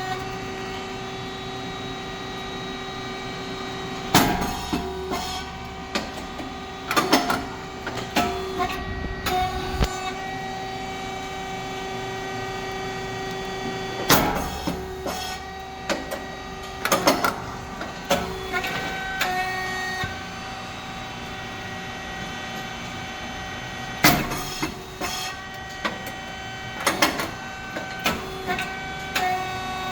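Rice cake popping machine (SYP9002) running its production cycle: a steady hum from the motor and hydraulic pump, with a sharp pop about every ten seconds, three times, as the heated moulds open and the rice cakes puff. Each pop is followed by a run of clicks and knocks.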